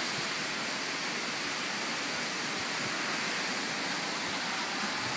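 Heavy hurricane rain pouring down in a steady, even hiss.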